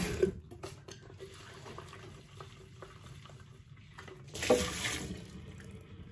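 Kitchen tap water shut off, followed by a knock and then small clinks of an electric kettle being handled. About four and a half seconds in there is a short rush of water with a knock, and near the end the tap runs again as the kettle is filled.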